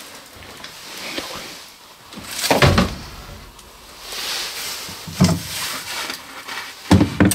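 A few scattered thumps and scrapes, the loudest about two and a half seconds in, with softer rustling between them.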